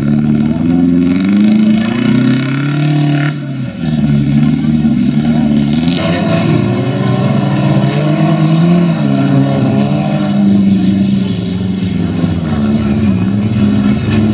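Engines of several old demolition-derby cars revving, their pitch rising and falling as they accelerate around the dirt arena.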